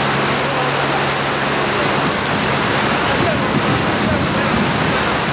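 Heavy tropical rain pouring steadily onto a wet tarmac apron, a dense, even hiss. A low steady hum underneath fades out about two seconds in.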